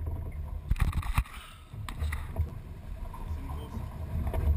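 Small boat's hull with water sloshing against it and a low rumble of wind on the microphone, with a few light knocks in the first two seconds.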